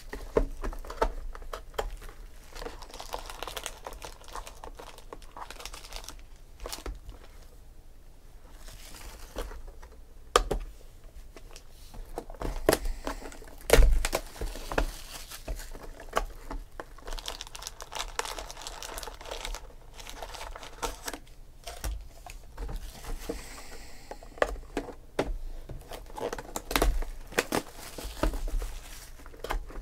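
Plastic shrink wrap being torn off sealed trading-card boxes and crumpled by hand: irregular crinkling and crackling with a few sharper snaps, plus light knocks of the cardboard boxes being handled.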